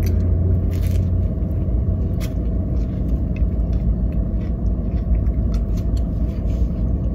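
Steady low rumble of the car running, heard from inside the cabin, with faint scattered chewing and mouth sounds as a sandwich is bitten into and eaten.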